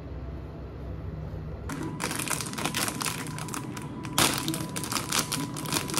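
Plastic snack packet crinkling as it is handled, starting about one and a half seconds in, with a few sharper crackles.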